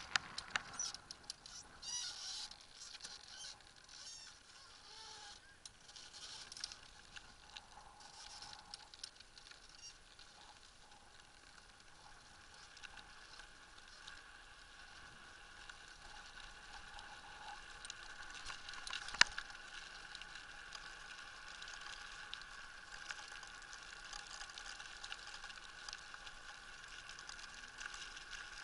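Blokart land yacht rolling over paving, heard from its mast: light crackling and rattling from the wheels and rig, busier at first. A steady high whine comes in about twelve seconds in, with a sharp click about 19 seconds in.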